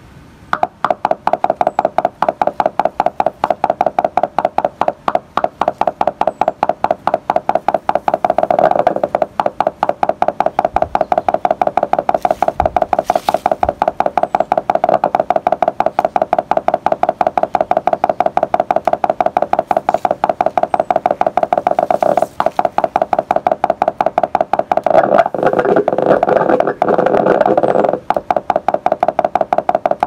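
Electronic oscillator tone driven by the bioelectrical field of fairies' bonnets mushrooms through electrodes: a rapid, steady-pitched stream of beeps, several a second. It thickens into a denser warble about nine seconds in and again near the end, following fluctuations in the fungi's electrical activity.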